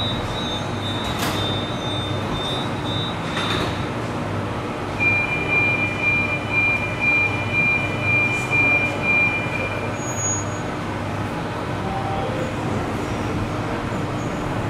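Lyon funicular car at the platform sounding its door-closing warning, a high beep repeating about twice a second for about five seconds, over the steady hum of the station and car; the car then starts off and pulls away.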